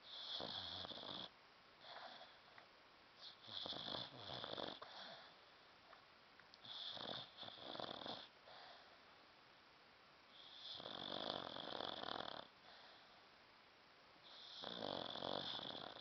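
Sleeping dog snoring: five slow, rasping breaths, each lasting one to two seconds and coming about every three to four seconds.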